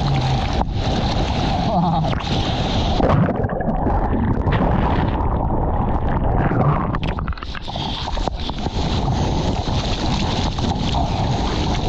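Seawater rushing and splashing around the nose of a surfboard as it moves through choppy water and whitewater, with wind buffeting a board-mounted camera's microphone.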